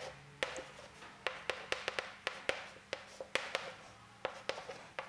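Chalk writing on a chalkboard: irregular sharp taps, about three a second, each ringing briefly.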